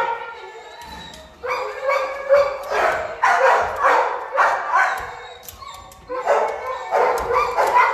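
Dogs barking and yipping repeatedly in a shelter kennel with hard tiled walls, in two runs of barks with a short lull between them.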